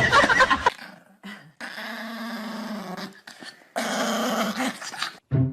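A dog growling in two long growls of about a second and a half each, after a brief tail of music at the start.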